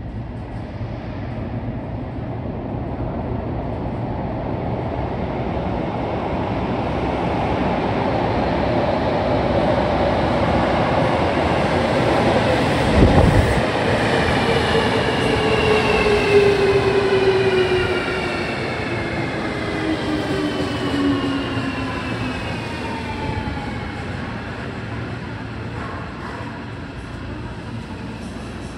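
JR Kyushu 305 series electric train pulling into an underground station: a rumble that grows as it approaches, a burst of low rumble as the front passes about halfway through, then several motor whines falling in pitch as it brakes to a stop.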